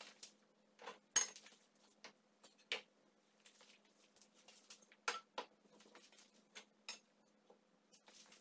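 Several light knocks and clinks as a stainless-steel cone dripper, a metal tumbler and a wooden dripper stand are set down and fitted together on a wooden tabletop, the sharpest about a second in.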